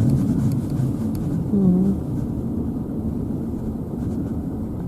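Car driving, with steady low engine and road noise and a brief voice sound about a second and a half in.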